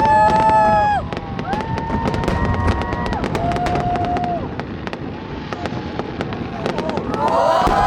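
Fireworks crackling and popping in quick, irregular bursts, with loud drawn-out whoops from the crowd over them, swelling into cheering near the end.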